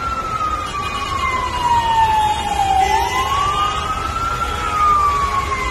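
Siren wailing slowly: its pitch falls over about three seconds, rises again, then falls once more, over steady background noise.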